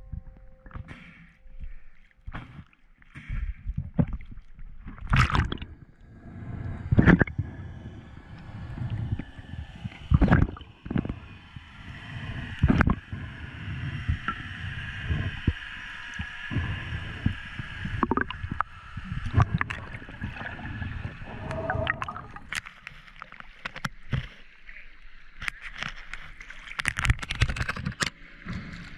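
Water sloshing and gurgling against a spearfisher's camera as he swims at the surface and underwater, with many sharp knocks and splashes throughout.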